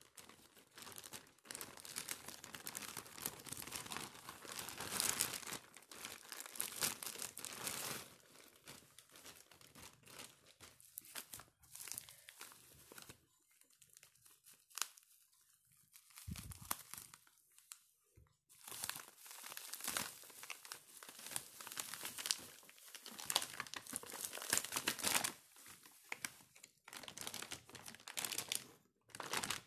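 Plastic courier mailer and bubble wrap crinkling, rustling and tearing as a parcel is unwrapped by hand, the bubble wrap cut open with scissors. The rustling comes in irregular bursts, with a quieter stretch midway broken by a few sharp clicks.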